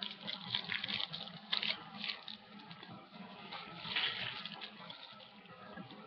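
Someone chewing a crunchy chocolate-coated wafer snack with peanuts, making irregular crackly crunches.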